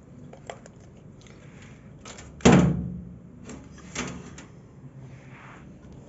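A single heavy knock about two and a half seconds in, with a few lighter knocks and clicks before and after it, over a low steady hum.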